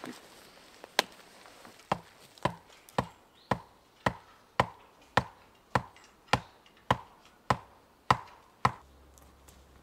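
A steady run of about fourteen hard wooden knocks, roughly two a second, that stops near the end: a wooden tent peg or stake being hammered into the ground.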